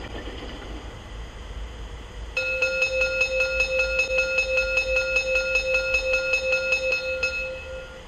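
Electric bell ringing rapidly, about six strokes a second for about five seconds, starting a couple of seconds in. It is a sampled auxiliary sound played through the small loudspeaker of an LGB IVk 145 model steam locomotive's mfx sound decoder.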